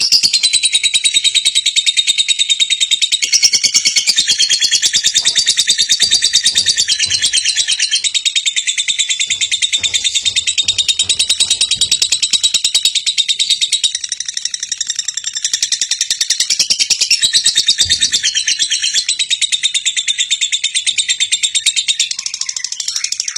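A lovebird doing its 'ngekek': a long, unbroken run of rapid, shrill chattering chirps that goes on without a pause for over twenty seconds.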